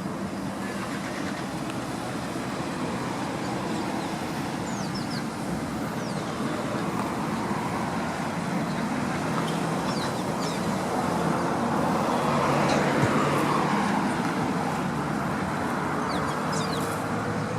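Steady outdoor traffic noise that swells as a vehicle passes about twelve seconds in, with short high bird chirps scattered throughout.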